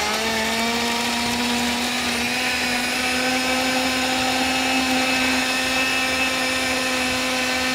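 Countertop blender running on watermelon and ice for a cooler drink. The motor whine climbs as it starts, holds steady for several seconds, then winds down as it is switched off near the end.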